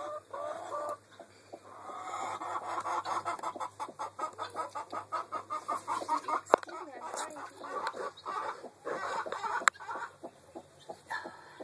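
Chicken clucking in a fast, steady run of clucks from about two to ten seconds in. Two sharp clicks stand out, at about six and a half and nine and a half seconds in.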